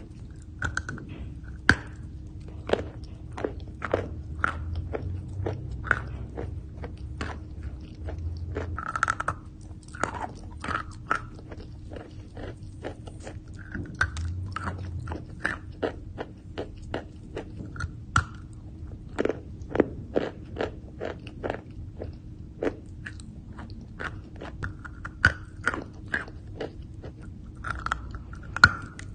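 A lump of chalk being bitten and chewed close up: many sharp, irregular crunches, a few a second.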